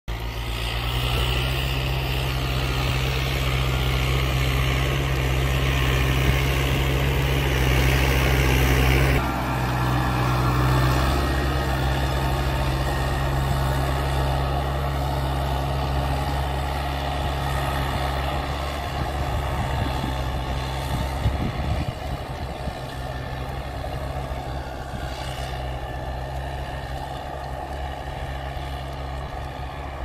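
Heavy vehicle's diesel engine running steadily at a constant speed. A hiss over it stops abruptly about nine seconds in.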